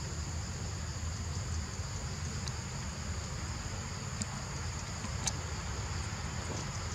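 Steady high-pitched insect chorus, two continuous shrill tones held throughout, over a low rumble, with a couple of faint ticks about four and five seconds in.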